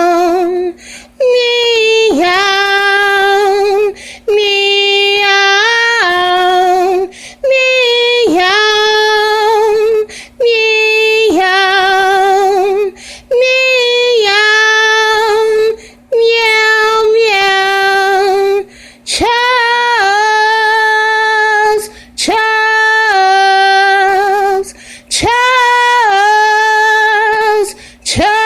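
A woman singing unaccompanied in a high voice: a string of long held notes with vibrato, in phrases of about two to three seconds each, with short breaths between them.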